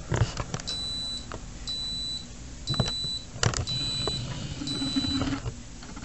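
Cuisinart TOB-200 convection toaster oven beeping at the end of its cooking cycle: five high beeps of about half a second each, about one a second. A couple of knocks sound between them.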